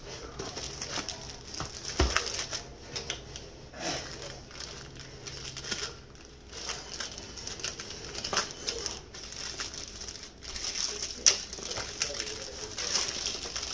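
Clear plastic wrap crinkling as hands handle and pull at a wrapped cardboard box, with a few sharper clicks and knocks.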